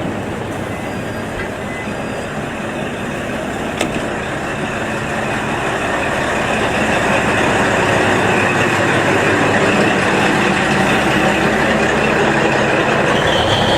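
JR KiHa 40 series diesel railcar running, its engine growing steadily louder through the second half as it draws near. A single sharp click sounds about four seconds in.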